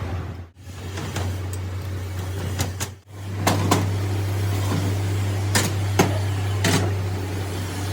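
A machine running with a steady low hum, broken by edits, with several sharp knocks about midway and later.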